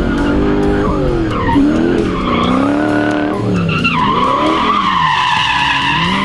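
Mazda B2200 pickup with a swapped Lexus 1UZ V8 drifting: the engine revs rise and fall several times, and the tires squeal, the squeal holding steady through the last couple of seconds.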